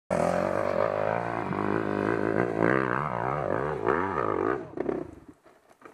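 Enduro motorcycle engine running, then revved up and down in a series of quick throttle blips, dying away about five seconds in.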